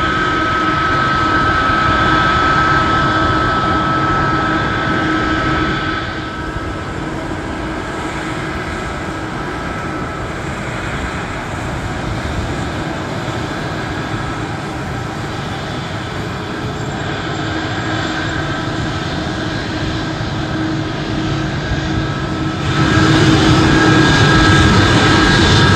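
Airbus A220's Pratt & Whitney PW1500G geared turbofan engines running at taxi power: a steady jet hum with held tones over it. It drops in level about six seconds in and comes back louder near the end.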